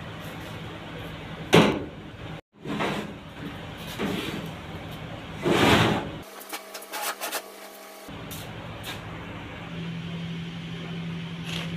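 Metal knocks and clanks as the bottom cover of a chilli-powder oil-mixing machine is fitted and closed by hand, with two louder knocks. A steady low hum comes in near the end.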